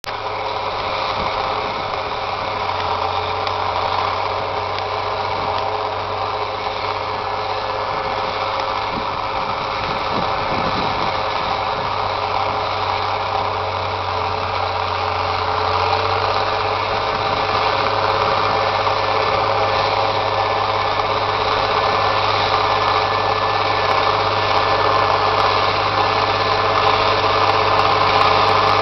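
International Harvester 1486 tractor's turbocharged six-cylinder diesel working under load pulling a chisel plow, running steadily and growing gradually louder as it draws closer.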